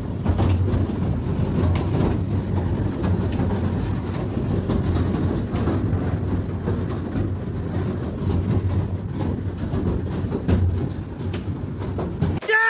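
Severe storm: strong wind roaring and buffeting, with a heavy low rumble and scattered sharp hits throughout. A short pitched honk begins right at the end.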